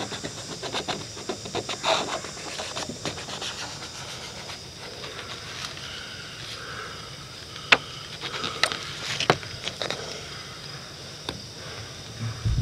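Razor-blade scraper scraping and prying an old rubber roof gasket off a camper's roof seam: uneven short scratches and clicks, thickest in the first few seconds, with a few sharper single clicks later on.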